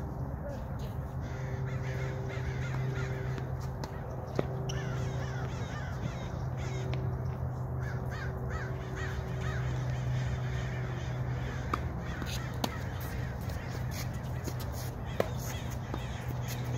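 Crows cawing in several bursts over a steady low hum, with a few sharp pops of tennis balls struck by racquets.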